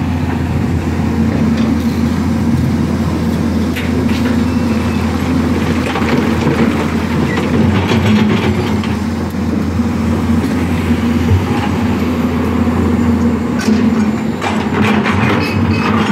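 Steady drone of heavy diesel earthmoving machinery. Over it come bursts of rock clattering as a crawler excavator's bucket digs into a pile of broken stone and dumps it into a dump truck's steel body, heaviest near the end.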